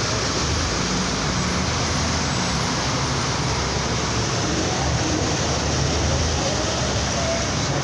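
Road traffic driving through floodwater covering a street. A steady rush of water and tyres, with vehicle engines running low underneath.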